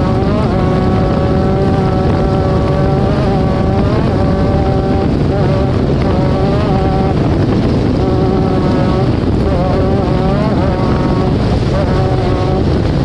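Off-road race vehicle's engine running hard under wind and road noise, its pitch climbing and dropping several times as the throttle and gears change.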